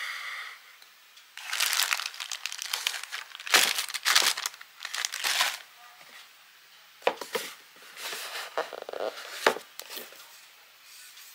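Plastic packaging crinkling and rustling as it is handled, in irregular bursts, followed by a few sharp clicks and shorter rustles in the second half.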